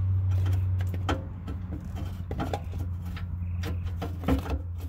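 Porsche Cayman 981 oil filter housing being twisted loose by hand from under the car, giving scattered scrapes and clicks as it turns on its threads; it is tight and slow to come off. A steady low hum runs underneath.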